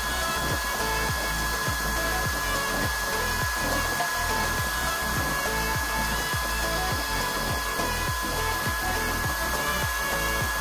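Homemade waste-oil stove burning with its small electric air blower running: a steady whir with a constant high whine and a low rumble from the burner.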